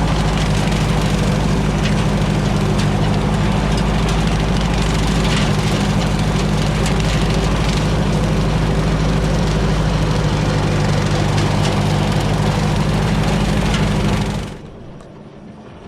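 Ford 860 tractor engine running steadily at raised RPM, driving a bush hog rotary cutter through the PTO. The sound cuts off sharply near the end.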